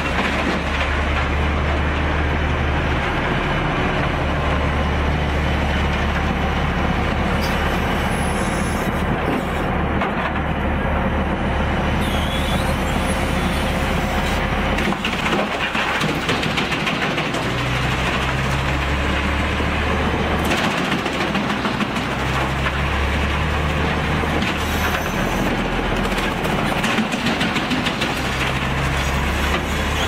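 Heavy machinery running steadily, with wood cracking and splintering as logs are fed into a drum wood chipper's rotating toothed drum.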